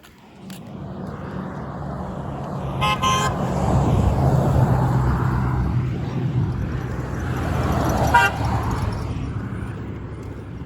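Road vehicles passing close by, their engine and tyre noise swelling and fading, with two short car horn toots: one about three seconds in and a shorter one about eight seconds in.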